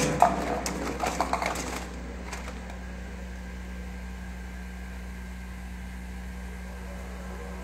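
A few knocks and rustles of a phone being handled and turned around. From about two seconds in, a steady low hum of room noise.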